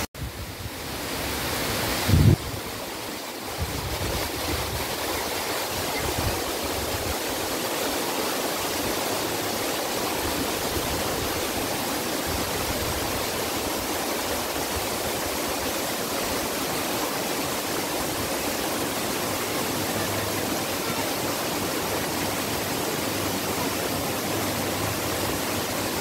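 Steady rushing of a small stream cascading over rocks in a little waterfall. About two seconds in there is a brief low thump.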